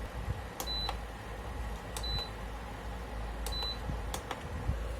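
Buttons on an induction stove's control panel being pressed: a click followed by a short high beep, three times about a second and a half apart, then one more click without a beep. A low steady hum runs underneath.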